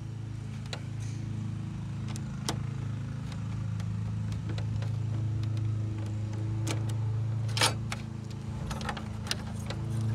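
A steady low engine-like drone throughout, with scattered small clicks and scrapes of a screwdriver and screw against the metal gaiter plate and plastic console as a screw is driven in; the sharpest click comes about two-thirds of the way through.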